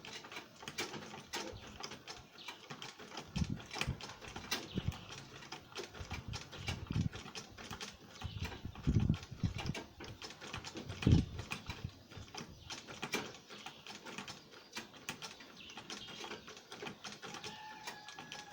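Sewing machine stitching a footwear piece in short runs: a quick, uneven clicking of the needle and mechanism, with a few low thumps in between.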